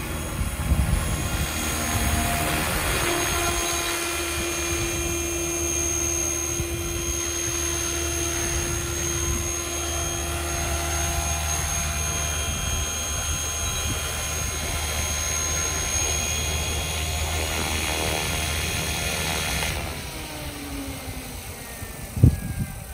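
Radio-controlled model helicopter (a Super Voyager E in an Ecureuil scale body) hovering and setting down, its rotor and motor running steadily with a whine. About 20 seconds in the power is cut, the sound drops, and the rotor winds down with a falling tone. A sharp knock comes near the end.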